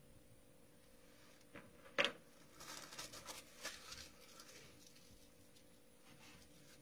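Quiet room tone broken by a single sharp knock about two seconds in, then a quick flurry of small clicks and rustles lasting about two seconds: handling noise while the song is being cued up.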